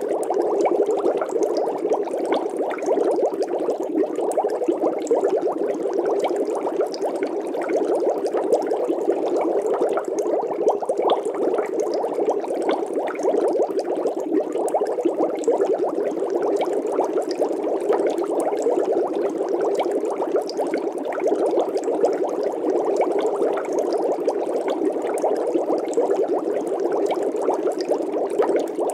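Steady, dense bubbling and crackling of water, a thick mass of fine ticks with no pause or change.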